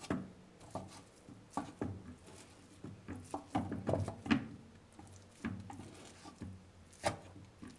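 Wooden spatula knocking and scraping against a non-stick frying pan as it chops up a block of raw ground meat: about ten soft, irregular knocks.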